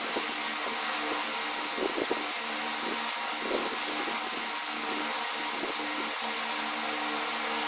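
Steady mechanical hum over a constant hiss, like a fan or motor running, with a few faint soft knocks about two seconds in and again a little later.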